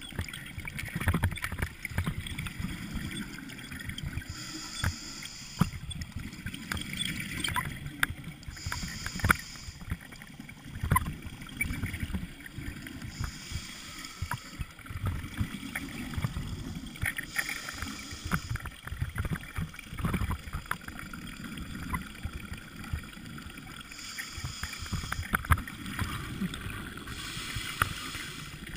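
Underwater sound picked up through an action camera's housing on a dive: a low rumble with frequent knocks and scrapes from handling. A short hiss of about a second recurs every four or five seconds.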